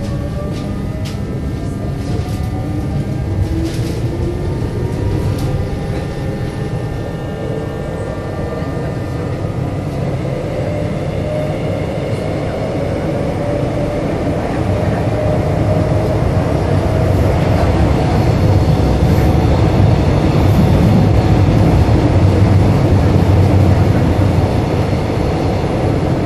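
Subway train running, heard from inside the car: the electric traction motors give a whine that rises in pitch over the first several seconds as the train picks up speed. The whine then levels off under a steady rumble of wheels on track, which grows louder in the second half.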